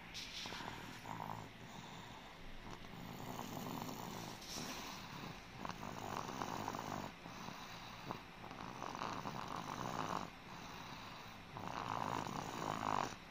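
A boy snoring: about five snores, one every two to three seconds.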